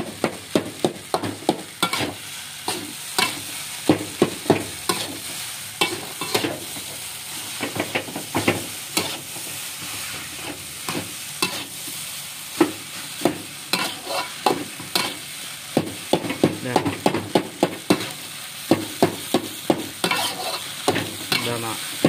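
A metal spatula scraping and knocking against a metal wok as fried rice is stir-fried, in irregular strokes about two a second, over a steady sizzle.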